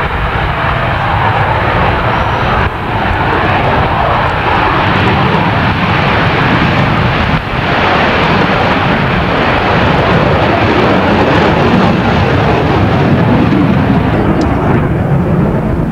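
General Dynamics F-16A Fighting Falcon jet making an unrestricted takeoff: a loud, sustained jet engine roar as it accelerates down the runway and climbs away.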